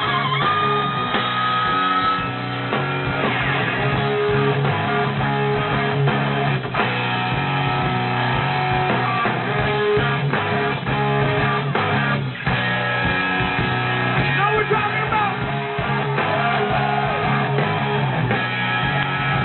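Rock band playing live, electric guitar prominent.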